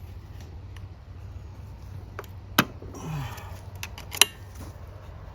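Metal parts clicking and clanking by hand as the rear wheel is fitted back onto a riding mower's axle, with two sharp clicks about a second and a half apart.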